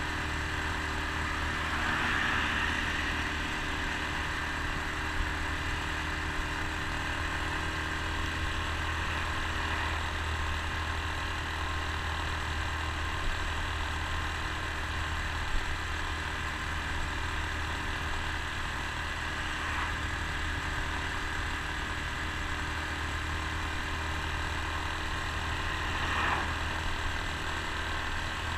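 Honda Super Cub C125's single-cylinder four-stroke engine running at a steady cruise, under a constant rush of wind and road noise, with a couple of brief swells in the noise near the start and near the end.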